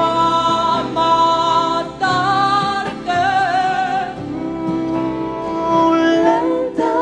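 A song: a singing voice holding long notes with vibrato, moving to a new pitch every second or so, over instrumental backing with a steady beat.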